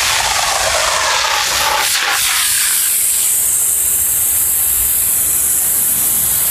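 Aerosol spray can discharging in one long, unbroken hiss as it sprays white foam onto the road.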